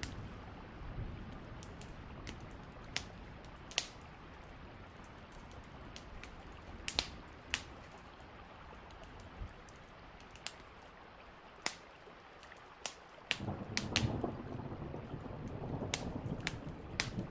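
Steady rain hiss with scattered sharp ticks. About thirteen seconds in, a low roll of thunder rumbles in and builds.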